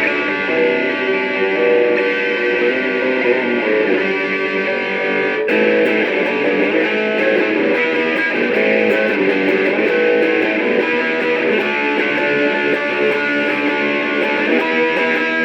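Electric guitar played through a Joyo British JF-16 Marshall-style amp simulator pedal, with chords and notes ringing out steadily. A sharp pick attack comes about five and a half seconds in.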